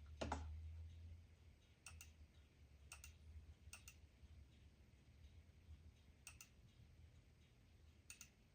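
Near-quiet room with a few sparse, faint clicks from operating the computer, several of them in quick pairs, about a second or more apart.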